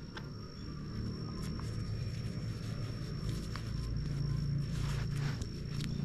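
Motorbike engine idling with a steady low hum, under a thin steady high tone and a few light ticks.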